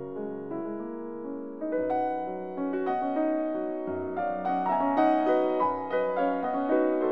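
Background music: piano playing slow, sustained notes.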